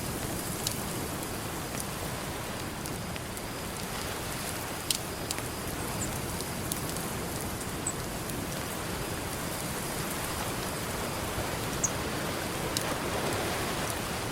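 Campfire crackling, with a few sharp pops several seconds apart, over a steady hiss of ocean surf; a wave swells up near the end.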